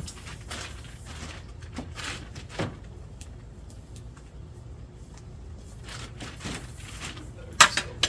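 Tent fabric rustling and light knocks from a tent pole as a ridge pole is fitted, with a sharper clatter of clicks near the end.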